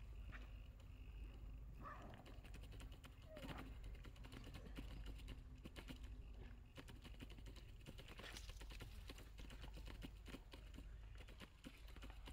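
Near silence: faint outdoor ambience with soft, irregular clicks and rustles and no clear single event.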